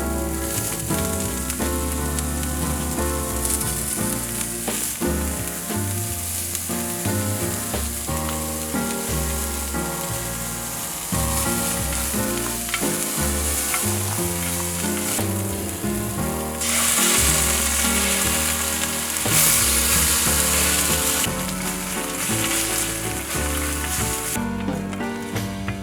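Food frying in a pan, a steady sizzle that grows louder for a few seconds past the middle, over background music.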